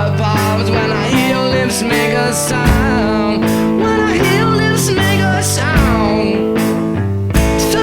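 Background rock music with electric guitar, a steady bass line and a singing voice.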